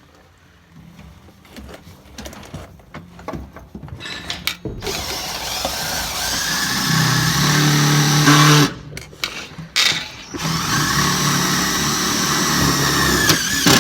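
Power drill driving a self-tapping screw, run in two spells of a few seconds each, the first about a third of the way in and the second stopping just before the end, with a few light clicks and knocks before the drill starts.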